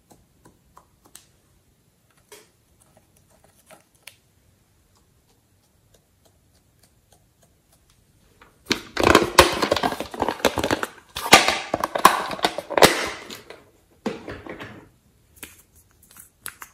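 Loud crackling, crinkling handling noise lasting about five seconds from just past the middle, with a shorter patch after it, followed by a few light clicks near the end.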